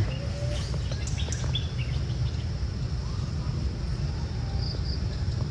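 Forest ambience: insects shrilling steadily in a high band, a few short high bird chirps, and a steady low rumble underneath.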